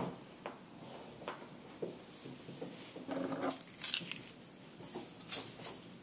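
A bunch of keys jangling in a hand, loudest about four seconds in and again briefly near the end, with a few light knocks before it.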